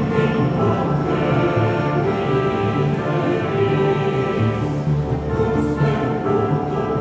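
Choir singing with a symphony orchestra, sustained full chords with voices and strings together.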